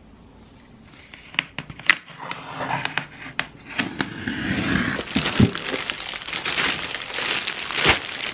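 Styrofoam delivery box being opened, with a few sharp clicks about a second in, then clear plastic bread bags crinkling as they are handled and lifted out, with two soft thumps.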